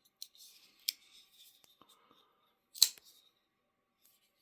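Oknife LK folding knife's blade swinging on its pivot, with a faint metallic swish and two sharp clicks, the louder near three seconds in: the blade being flipped open and shut.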